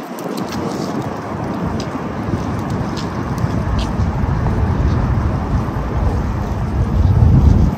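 Wind buffeting a handheld phone microphone outdoors, a dense low rumble that builds toward the end and then cuts off suddenly.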